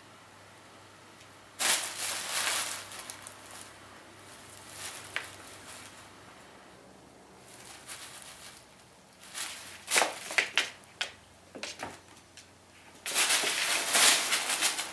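Tissue paper rustling and crinkling as a Siberian cat tussles in it. There are three loud spells: one about two seconds in, a run of sharp crackles around ten seconds, and a longer, denser one near the end.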